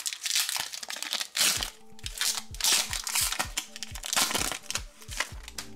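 Foil wrapper of a Pokémon card booster pack crinkling loudly as hands tear it open and pull the cards out. Background music with a steady low beat comes in about a second and a half in.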